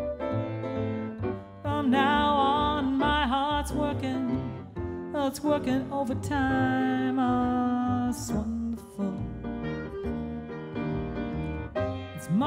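Small jazz combo playing an instrumental passage: piano and upright bass under a lead melody line that bends and wavers in pitch.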